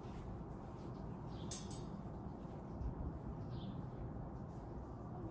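Outdoor garden ambience: a steady low rumble of background noise with a few faint bird chirps. A couple of brief light clicks come as wet clothes are handled.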